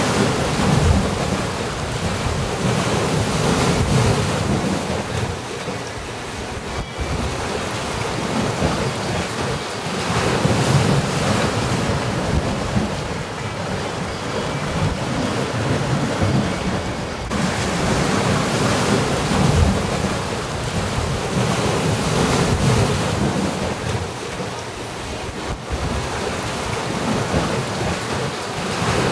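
Wind and sea surf on a rocky shore: a loud, steady rush that swells and eases every several seconds, with wind buffeting the microphone.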